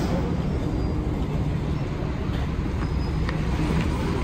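Scania K440IB coach's diesel engine running at low speed as the double-decker pulls slowly away, a steady low rumble.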